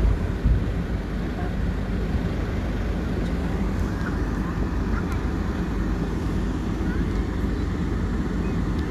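Steady outdoor background rumble, heaviest in the low range, with faint distant voices now and then.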